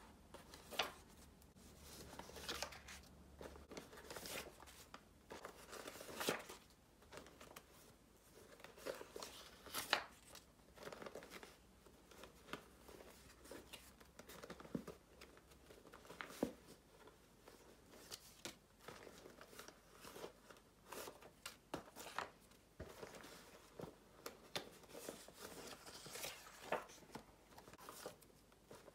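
Sheets and cards of paper being handled and laid down on a pile: soft rustling and sliding, with many short crisp taps and crinkles at irregular intervals.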